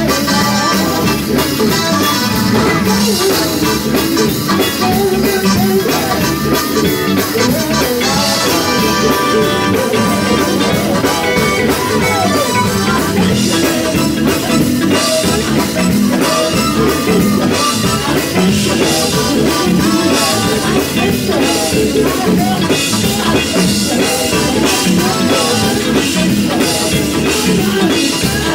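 Live gospel quartet music: male voices singing into microphones over electric guitar and drum kit, with a steady beat.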